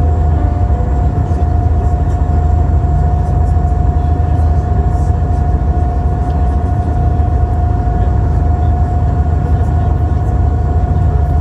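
A vehicle running with a steady low drone and a constant whine over it, unchanging throughout.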